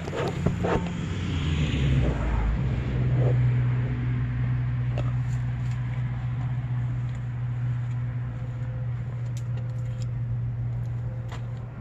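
A steady low mechanical hum, following a few knocks in the first couple of seconds; it cuts off suddenly near the end.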